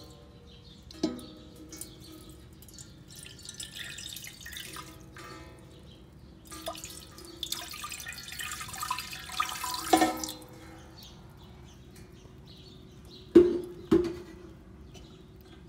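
Water being poured and dripping into a stainless-steel pressure cooker over its perforated steamer stand, with a few sharp metal clinks that ring on. The last two clinks come close together near the end and are the loudest.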